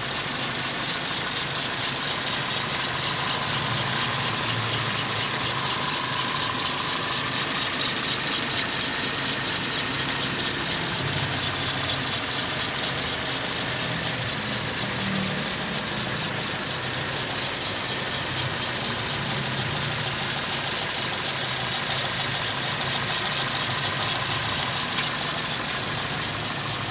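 Toyota Corona RT104 engine idling steadily, with a fast, even ticking over the running.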